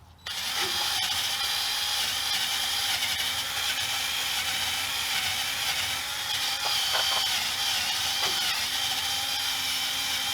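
A loud, steady mechanical hiss starts abruptly a moment in and keeps running.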